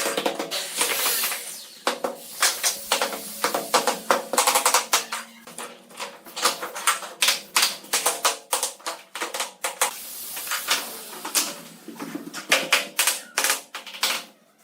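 Rapid, irregular clicking and knocking of hard bamboo pieces being worked and struck against one another, with short stretches of scraping noise.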